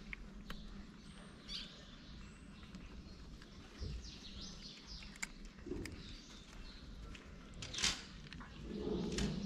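Cats crunching dry kibble from a small dish: scattered crisp clicks and crunches, with a sharper, louder click about eight seconds in. Birds chirp faintly in the background.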